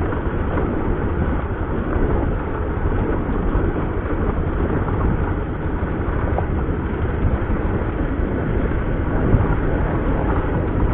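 A motor vehicle on the move: a steady rumble of engine, road and wind noise that holds an even level throughout.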